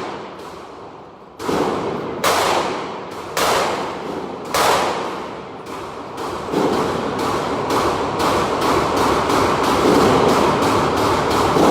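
Gunshots at a shooting range: four separate shots about a second apart, then from about halfway a steady run of rapid shots, several a second, each with an echoing tail.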